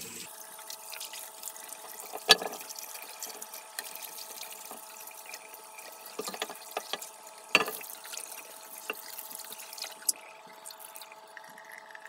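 Water from a hose splashing and dripping on a cast-iron drill press head in a steel utility sink, with many small ticks of drops. Two loud knocks, about two seconds in and again near the middle, as the heavy casting is turned and bumps the sink.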